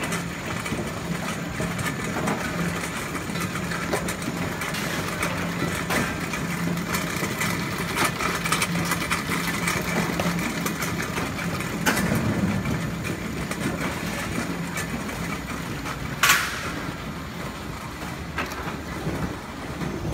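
Electric motor of a fruit-sorting conveyor running with a steady hum under scattered small knocks of fruit and handling, the hum fading out about fifteen seconds in. A sharp loud knock about sixteen seconds in.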